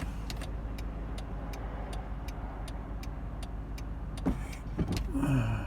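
Lincoln's turn-signal flasher ticking steadily, about three clicks a second, over the engine idling.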